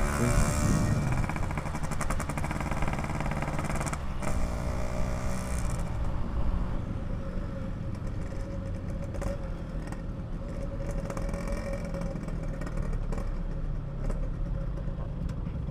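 Yamaha RX-King's 135 cc single-cylinder two-stroke engine running through a PK3 exhaust while riding. The engine note falls in the first second, then runs steadily and a little quieter from about six seconds in.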